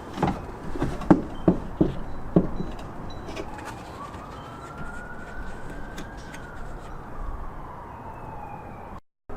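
A series of sharp knocks and clicks as the tow mirror and its mounting hardware are handled against the truck door. About four seconds in, a distant siren wails once, rising and then falling over a few seconds.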